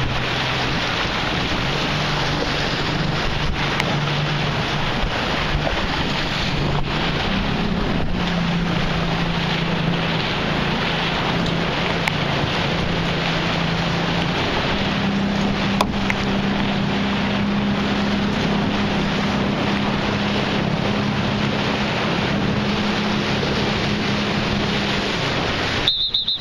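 Wind on the microphone and rushing water from a boat under way, with the steady hum of an outboard motor that steps up in pitch a few times as it speeds up. Near the end, a high repeating beep begins.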